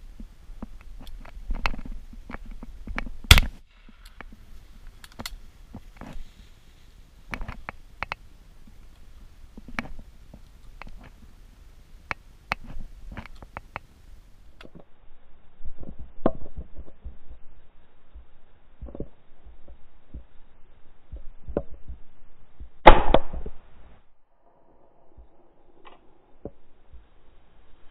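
Shotgun shots: a sharp loud bang about three seconds in and a louder one with a short ring-out about 23 seconds in, among scattered small knocks and rustles close to the microphone.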